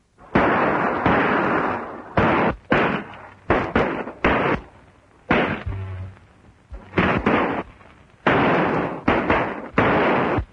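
Gunfire: about fifteen shots at uneven intervals, some in quick runs of two or three, each with a long echoing tail.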